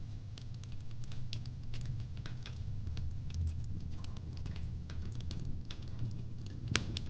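Fire pit crackling: irregular sharp pops and snaps over the low, steady rumble of the flames, with one louder pop near the end.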